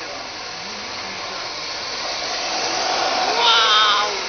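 Radio-controlled drift cars whirring as they slide on a smooth floor, a steady high whine and tyre hiss that grows louder as a car passes close. A wavering high-pitched whine stands out near the end and is the loudest part.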